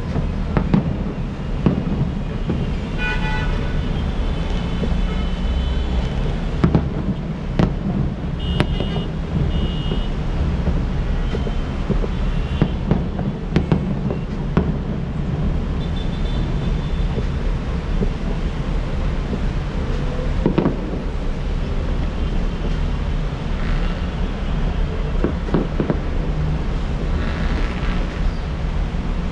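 Steady rumble of city traffic with short horn toots now and then, and scattered sharp pops of fireworks bursting.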